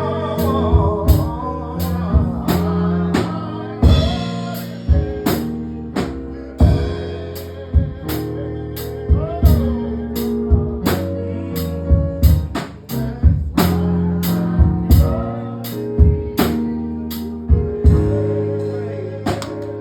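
Live gospel band playing on after a song: drum kit keeping a steady beat over sustained keyboard chords, bass and guitar, with a few brief vocal phrases.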